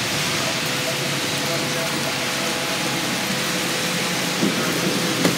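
Strong wind and heavy rain of a severe thunderstorm, a steady rushing noise with no letup.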